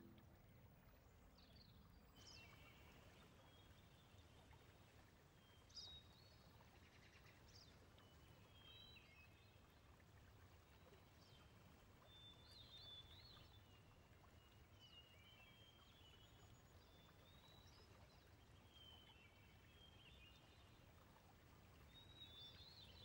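Faint outdoor ambience: small birds chirping and trilling now and then over a low steady rumble, with a single soft tap about six seconds in.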